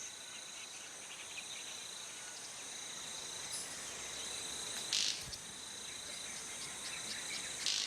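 Rainforest insects keep up a steady high-pitched buzzing over a soft background hiss. A brief, louder, buzzy high burst cuts in about five seconds in, and another comes near the end.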